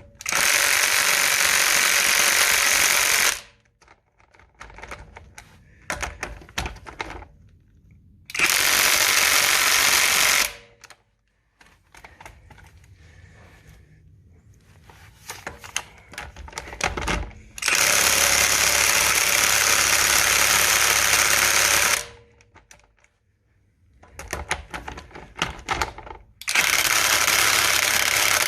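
Cordless 20V impact driver hammering on a car's wheel lug nut in four bursts of two to four seconds each, with clicks and clatter between them as it is repositioned. The nut does not come loose: the driver lacks the torque to remove it.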